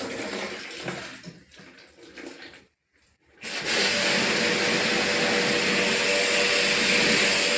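Water being sprayed during an air conditioner water wash: uneven splashing at first, then after a short silence a pressure-washer pump starts up, a loud steady spray hiss with a motor hum.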